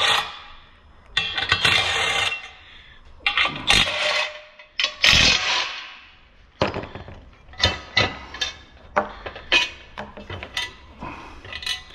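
Cordless impact wrench run in three short bursts, backing bolts out of nuts just tack-welded into a swingarm's mounts, a check that the threads still turn freely. Then light metal clinks and knocks as the bolts and tool are handled and set down.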